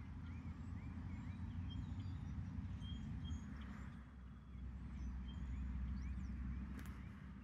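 Low wind rumble on a phone's microphone, with birds chirping in short repeated notes and a faint click near the end.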